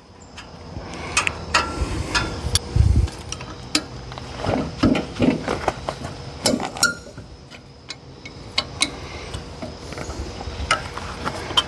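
Irregular metallic clinks, taps and knocks of hand tools and loose sheet metal as the cover over the pulley is unfastened from a Wheel Horse 702 garden tractor's engine, with a duller thump about three seconds in.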